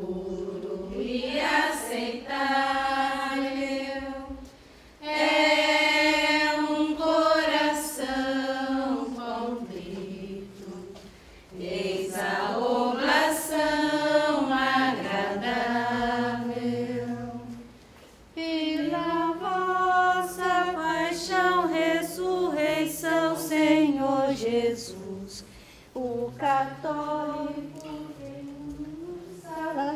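Carmelite nuns singing a hymn unaccompanied, women's voices together on one melody, in long phrases with short breaks between them.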